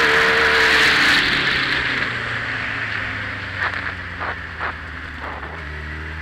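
Motorcycle ride heard from the bike: wind rushing over the microphone fades about a second in as the bike slows, leaving the engine running at low revs with a steady note. A few light knocks come in the middle.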